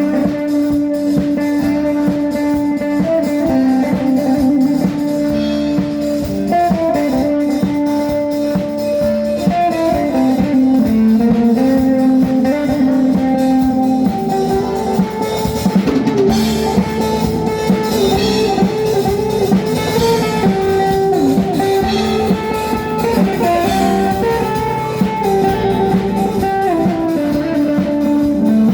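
A band playing an instrumental piece at a sound check: a guitar carries the melody over a drum kit.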